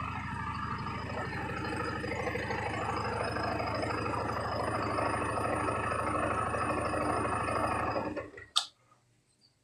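Yamaha R15 V3's single-cylinder engine idling steadily at the end of a warm-up, then shut off about eight seconds in, the idle dying away. A single sharp click follows a moment later.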